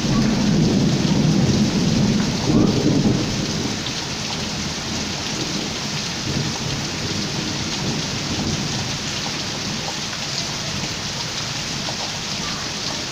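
Heavy rain pouring steadily in a thunderstorm, with a low roll of thunder in the first three seconds that fades away.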